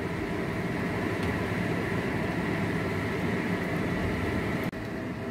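Steady whirring hum with no distinct events, dropping out abruptly for an instant about four and a half seconds in.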